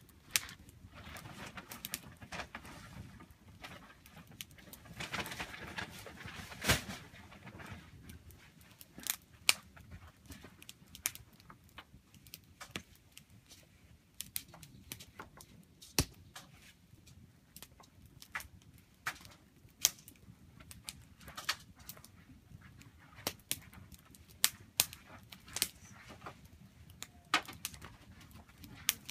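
Wood campfire crackling, with irregular sharp pops and snaps, a few of them much louder than the rest, and a brief soft hiss about five seconds in.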